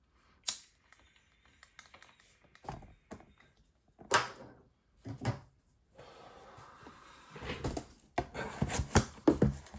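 Cardboard blaster box of trading card packs being opened and handled: scattered taps, knocks and rubs, a stretch of steady rustling a little past the middle, then a quick run of clicks and knocks near the end.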